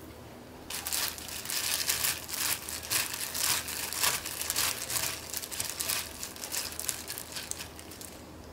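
Dense, irregular crinkling and rustling as something is handled, starting abruptly about a second in.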